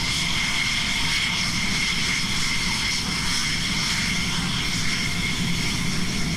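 An F-16's single jet engine running on the ground: a steady high-pitched turbine whine over a low rumble.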